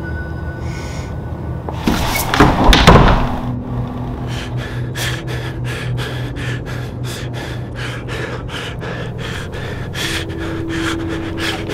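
Film sound design: a loud slam about two seconds in, then a steady low drone with quick, even ticking, about three ticks a second.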